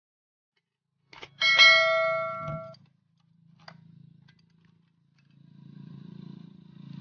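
A metal tool clanging once against metal about a second and a half in, ringing on for about a second. A faint low rumble comes and goes afterward.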